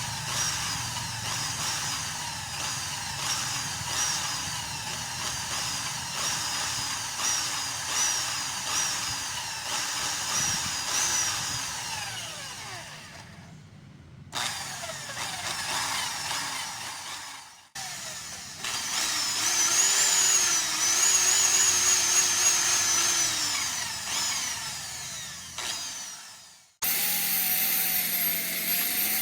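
Electric drill spinning a 4D56 engine valve against its seat in coarse lapping compound, running in several stretches that stop suddenly, its pitch rising and falling as the speed changes.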